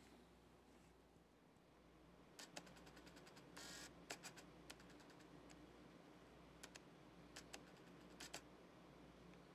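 Near silence: room tone with a steady low hum and scattered faint clicks.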